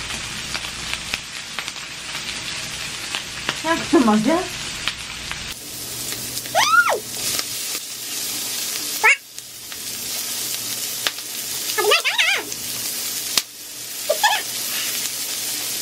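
Pork belly (samgyeopsal) sizzling on a tabletop grill pan with a steady sizzle. From about six seconds in, a few short rising-and-falling tones sound over it.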